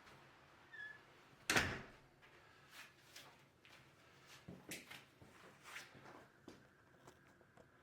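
A loud knock about a second and a half in, followed by several lighter knocks and bumps.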